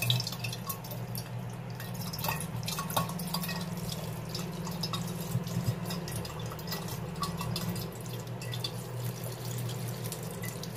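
Tap water running into and over a glass bottle being rinsed in a stainless steel sink, with splashing and dripping, over a steady low hum.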